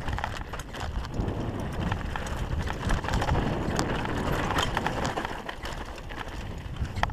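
Downhill mountain bike rolling fast over a loose, rocky dirt trail: steady tyre noise on dirt and gravel with a low rumble, broken by many irregular clicks and knocks from stones and the rattling bike.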